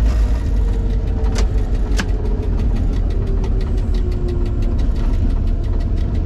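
Series 661 (EMD G16) diesel-electric locomotive heard from inside its cab: a steady low engine rumble with a fast, even clatter and a faint tone slowly falling in pitch. Two sharper knocks come about one and a half and two seconds in.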